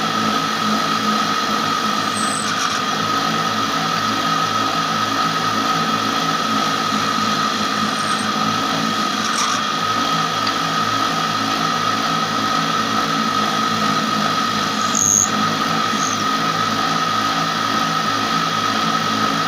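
Motor-driven wood-splitting machine running with a steady high whine, while blocks of wood are fed into its spinning head. A brief sharp crack stands out about three-quarters of the way through.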